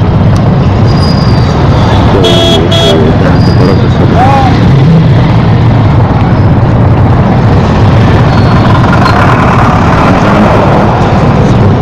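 Loud, steady rumble of a motorcycle ride through dense stop-and-go traffic, with engine and road noise. A vehicle horn toots twice in quick succession about two seconds in.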